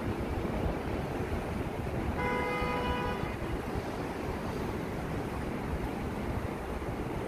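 An approaching New York City subway train, an R62A, sounds one steady horn blast about a second long, about two seconds in. Steady wind noise and rumble run underneath.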